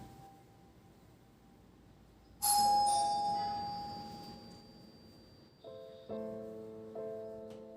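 Soft background piano music. A single struck note rings out about two and a half seconds in and fades slowly, followed by gentle chords near the end.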